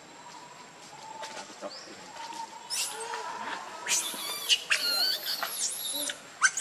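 Baby pig-tailed macaque crying: a run of shrill, high-pitched squeals that rise and fall in pitch, starting about three seconds in and coming thick and loud near the end.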